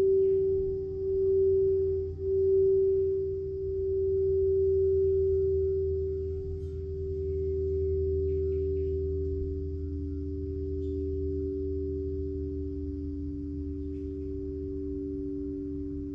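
Frosted crystal singing bowls ringing with a sustained pure tone that swells and wavers in loudness at first, then holds steady. A second, lower-pitched bowl joins about ten seconds in, and both ring on together.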